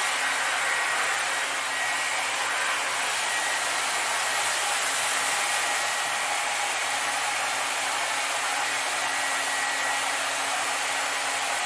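Hand-held hair dryer running steadily on its warm setting, a continuous rush of air with a faint motor whine, blowing into the open end of a large balloon to fill it with hot air.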